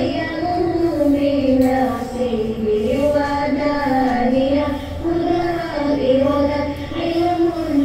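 Background music: a high voice singing a slow, gliding melody of long held notes.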